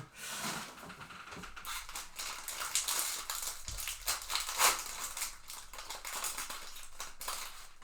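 Trading-card packs being torn open and their wrappers crinkled, with cards shuffled in hand: an irregular crackling with sharp little crinkles.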